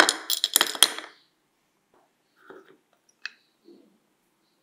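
Small screws dropped into a shallow dish, clattering in a quick run of sharp clicks for about a second. Then a few faint knocks and one small click as the parts are handled and set down on the workbench.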